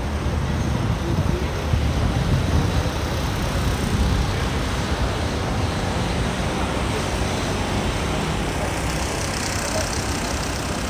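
Steady city traffic noise at a busy street intersection: a continuous low rumble of cars and a tram moving through.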